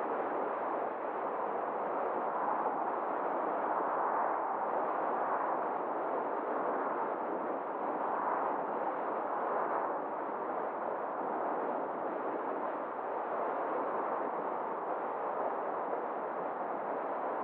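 Steady rushing noise of a car driving along a road: tyre and wind noise that swells a little now and then.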